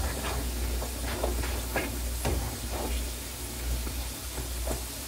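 Cubed potatoes sizzling as they fry in a skillet, with a spatula scraping and tapping the pan every half second or so as they are stirred.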